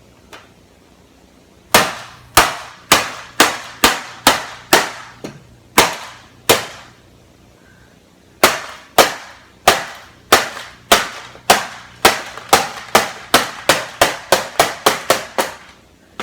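Hammer blows smashing a plastic printer housing: a long run of sharp whacks that pauses briefly in the middle, then comes faster and faster toward the end.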